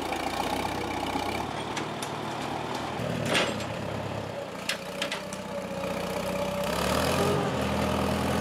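1951 McCormick W4 tractor's four-cylinder gasoline engine running steadily under heavy load as it strains to drag a massive boulder on a chain. There are a few sharp knocks around the middle, and the engine gets louder about seven seconds in.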